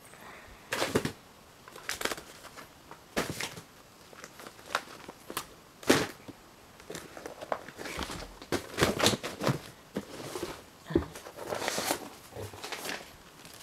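Rustling, crinkling and light knocks of household items being handled and packed into a container, in irregular bursts.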